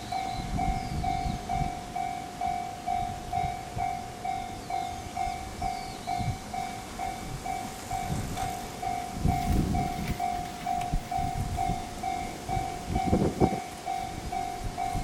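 Japanese level-crossing warning bell ringing its pulsed electronic tone at about two strokes a second. Under it, a train rumbles over the crossing with uneven bursts of wheel noise, loudest about two-thirds of the way through.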